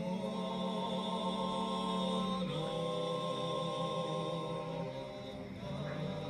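Background music of slow, held chords that change about two and a half seconds in and again near the end.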